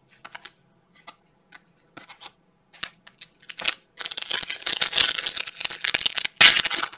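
Light taps and clicks of trading cards being handled and set down. From about four seconds in comes a loud crinkling of a foil card-pack wrapper as it is handled and opened.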